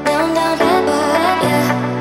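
Background music: sustained chords that change about every second under a wavering melody line.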